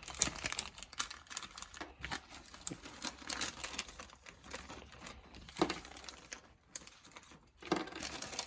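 Plastic parts bag crinkling and rustling as it is handled, with irregular small crackles and clicks.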